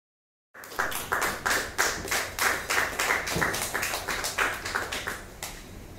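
A quick run of sharp smacks, about four a second, starting abruptly out of silence, then slowing and fading near the end.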